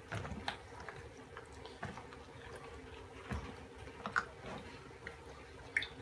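Gloved hand squishing pieces of catfish through a thick, wet mayonnaise batter in a plastic bowl: soft, irregular wet smacks and clicks.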